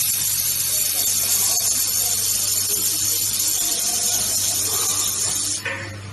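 Handheld fiber laser welding gun in use, giving a steady high-pitched hiss that cuts off suddenly about five and a half seconds in.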